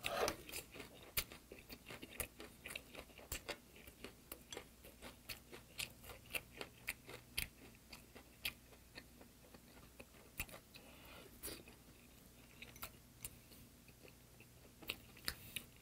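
A man chewing a mouthful of braised sardines close to the microphone: soft, irregular wet mouth clicks and smacks, several a second, thinning out over the last few seconds.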